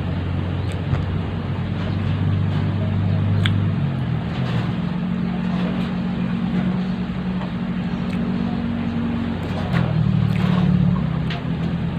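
A low engine drone runs throughout, its pitch stepping up about four seconds in and shifting again near ten seconds, with faint small clicks over it.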